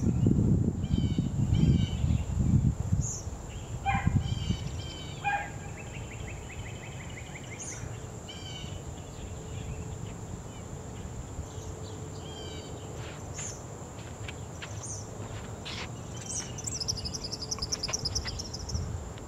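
Birds calling outdoors: repeated short chirps and calls, a fast trill about six seconds in and a higher, faster trill near the end, over a steady high whine. A low rumble fills the first three seconds.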